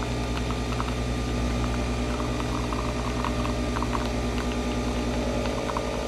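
Capsule coffee machine brewing: a steady motor hum with a light crackle as coffee streams into a stainless steel cup.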